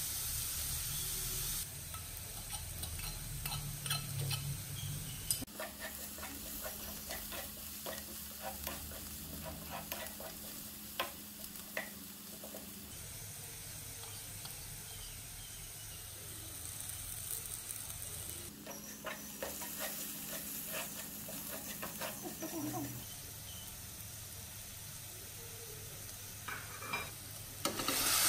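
Chopped onions frying in oil in a nonstick pan, sizzling steadily while a spatula stirs them with scraping and tapping against the pan. It comes in several short cut-together takes, and the sizzle gets louder near the end.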